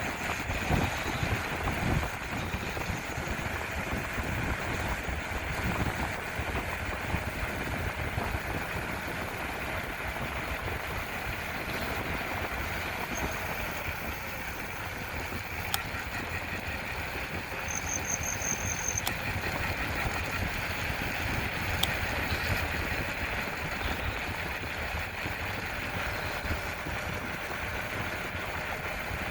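Bicycle coasting downhill: steady rolling noise of the tyres on the pavement, with low rumbling wind buffeting.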